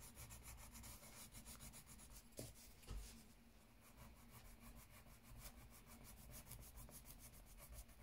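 Faint scratching of a pencil shading back and forth on notebook paper, with two soft knocks about two and a half and three seconds in.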